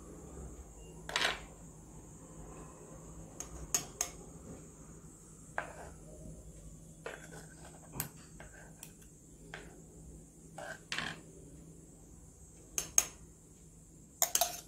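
Steel knife and spoon clicking and tapping against each other and on a wooden chopping board as chopped green chilli is scraped onto the spoon, a dozen or so separate sharp ticks. Near the end a quick run of clinks as the spoon knocks against a glass.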